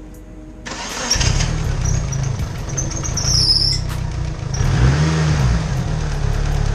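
Mitsubishi Eclipse GSX's turbocharged 4G63 inline-four starting up after an oil change: it cranks and catches about a second in, then runs. A high squeal comes in briefly near the middle, and near the end the revs rise and fall once before the engine settles into running. The owner says the alternator or power-steering belt is slipping.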